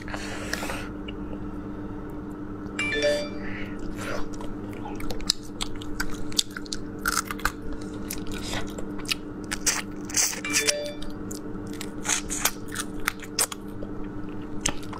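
Close-up eating sounds of spicy snails in chili oil: chewing, with many short wet clicks and crackles as the meat is pulled from the shells and bitten. A steady low hum runs underneath.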